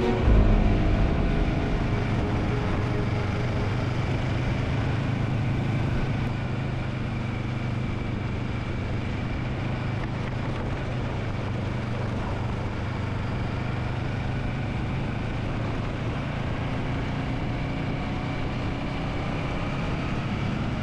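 An engine running steadily: a low, even drone with noise over it, easing slightly about six seconds in.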